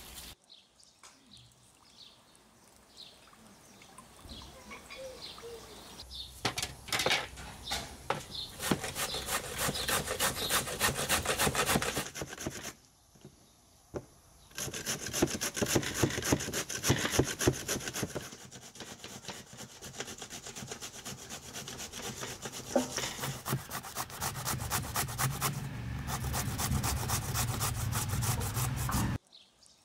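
Zucchini being grated by hand on a stainless-steel box grater: quick, even rasping strokes of the vegetable against the metal teeth. The strokes start about six seconds in and pause briefly partway through.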